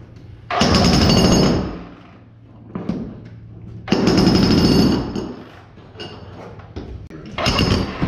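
Electric jackhammer (Hilti demolition breaker) hammering into a tiled concrete floor slab in three bursts of about a second each, with short pauses between them.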